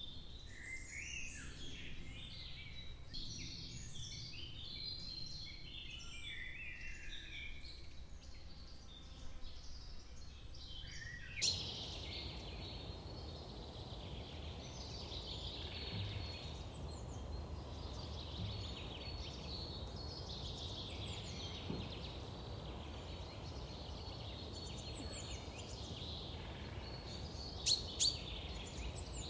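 Woodland birds chirping and singing over steady forest background noise. A sharp click comes about eleven seconds in, and two more close together near the end.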